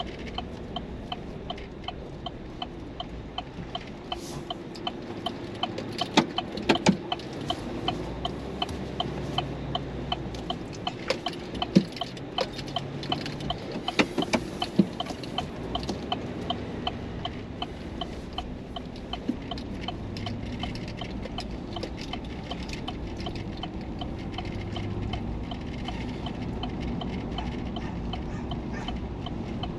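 Car turn-signal indicator ticking steadily inside the cabin over low engine and road rumble, with a few sharp knocks and clicks in the first half.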